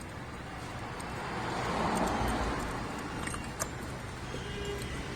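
Light metallic clinks of hand tools and bolts being handled at the engine, with a few small clicks past the middle, while a passing vehicle's noise swells and fades about two seconds in.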